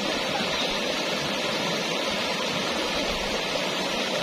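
River current rushing and rippling steadily.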